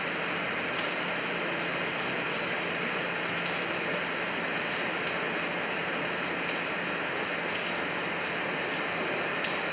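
Steady rain falling and pattering on surfaces, with scattered small drip ticks and one sharper tick near the end.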